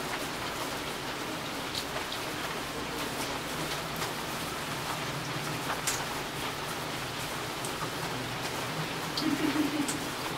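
Steady rain falling, with scattered sharp drips and drop hits. A short, louder low sound comes about nine seconds in.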